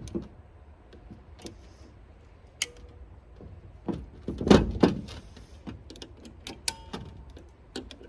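Small metal clinks and knocks of starter-motor parts and tools being handled, a couple of them ringing briefly, with a louder clunk about four and a half seconds in.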